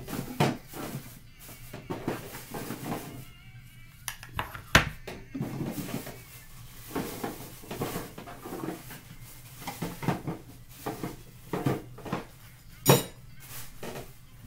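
Cornstarch chunks crunching as they are bitten and chewed, a run of irregular crisp crunches with two sharper snaps about five seconds in and near the end.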